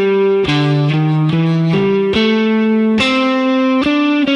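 Guitar playing a single-note lick in A minor pentatonic with chromatic passing notes, one picked note after another.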